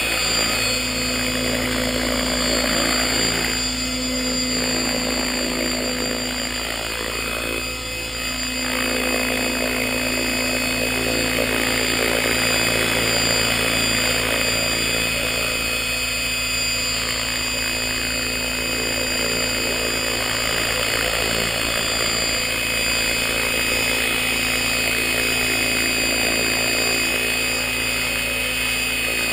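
Align T-Rex 600 radio-controlled helicopter running with its rotors spinning at speed: a steady mechanical whine made of many pitched tones, dipping briefly about seven to eight seconds in. This is a test run after its vibration issues were fixed.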